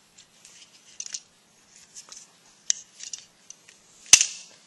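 Small plastic clicks and light scraping from handling a plastic Transformers action figure, with one sharp, louder click about four seconds in.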